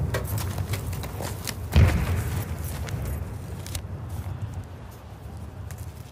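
Distant battlefield gunfire: scattered sharp cracks over a low rumble, with one heavier artillery boom about two seconds in, the whole dying away.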